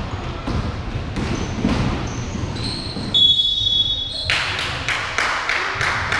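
Basketball bouncing on a hall floor, with repeated sharp bounces and short sneaker squeaks. About three seconds in comes a steady, high, roughly one-second blast of a referee's whistle.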